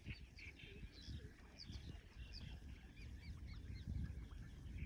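Many small birds chirping, with short high calls overlapping throughout, over a faint low rumble.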